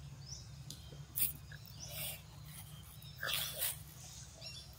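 Short sharp animal calls over a steady low hum: a brief one about a second in, then a longer, louder one a little past three seconds.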